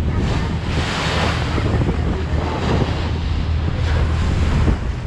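Wind buffeting the microphone over the rushing wake of a moving passenger ferry, with a steady low drone of the boat's engines underneath.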